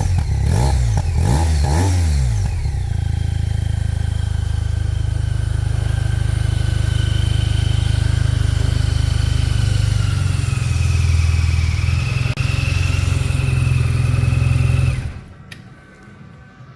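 BMW R 12 nineT's air/oil-cooled boxer twin through its stock exhaust, blipped a few quick times with the revs rising and falling, then settling to a steady idle. The engine sound stops abruptly about fifteen seconds in.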